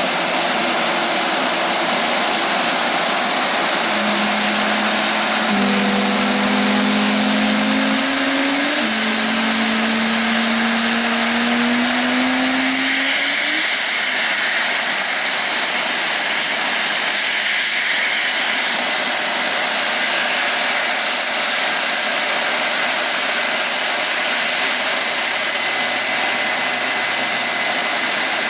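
Jet engines running on an airfield ramp: a loud, steady rushing roar, with a few low hums that slowly rise in pitch between about four and thirteen seconds in.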